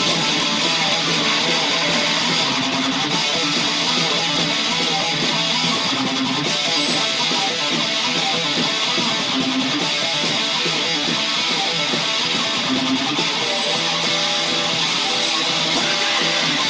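Electric guitar playing a heavy metal song along with the recorded band, steady and without a break.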